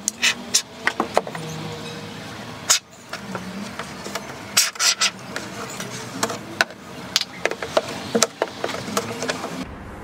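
Can of expanding polyurethane foam dispensing through its straw nozzle into holes in a refrigerator's plastic liner, in short irregular spurts and clicks.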